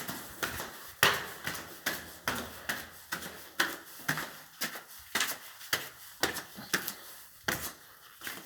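Footsteps climbing a staircase, a steady tread of about two steps a second.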